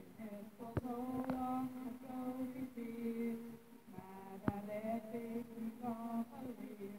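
A woman singing a slow melody close into a handheld microphone, in drawn-out sung phrases. A few sharp clicks cut through the singing.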